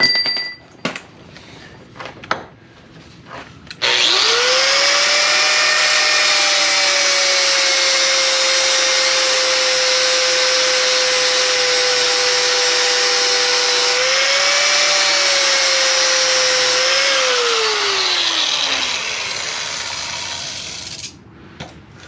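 Corded angle grinder grinding into the steel door hinge of a Jeep Cherokee. A few metal clinks come first; about four seconds in the motor starts and runs loud and steady with a grinding hiss, briefly speeding up about two-thirds of the way through. Near the end it is switched off and winds down, its whine falling in pitch.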